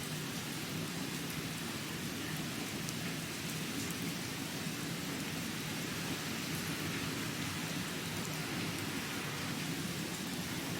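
Steady rain falling, an even, unbroken hiss of rain with a few faint drop ticks.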